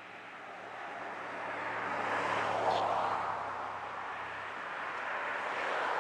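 A car driving past on the road: its tyre and engine noise swells to its loudest about halfway through, then fades, and another vehicle comes up near the end.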